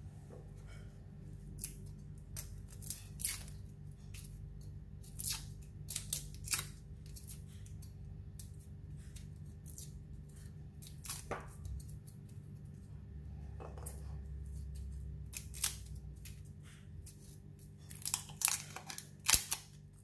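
Garlic cloves being trimmed with a kitchen knife and peeled by hand: the dry, papery skins crackle and tear in irregular crisp snaps, more of them near the end. A faint steady low hum runs underneath.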